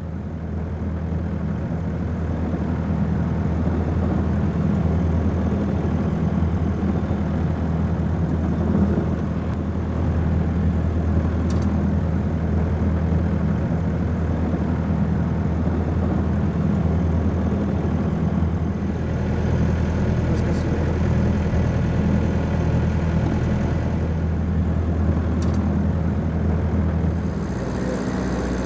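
A fishing boat's diesel engine runs as a steady low hum. Near the end the sound changes and water rushing past the hull joins in as the boat gets under way.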